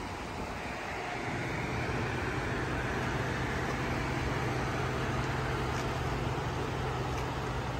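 Ford F-150's 5.0 V8 idling with a steady low hum.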